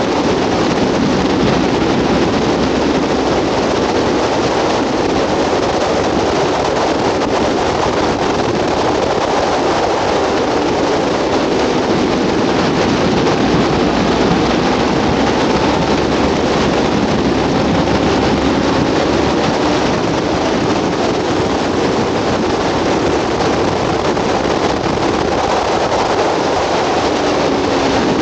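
Onboard sound of a Kawasaki ZX-10RR inline-four superbike at speed on track: a steady rush of wind over the microphone, with the engine note faintly rising and falling underneath as the rider works through the revs.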